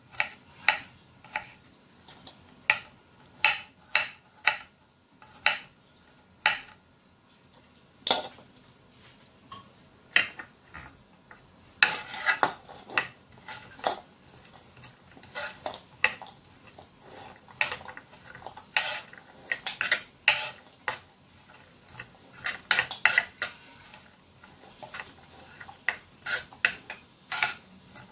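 A kitchen knife slicing onion on a bamboo cutting board: irregular sharp knocks of the blade on the wood, now and then in quick runs, with the sliced onion scraped off the board into a glass bowl.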